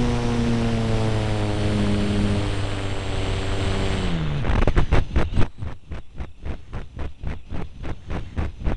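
Model airplane's motor and propeller running with a steady drone that sinks slowly in pitch, then winds down sharply about four seconds in as the throttle is cut. After that comes a run of irregular thumps, about three a second.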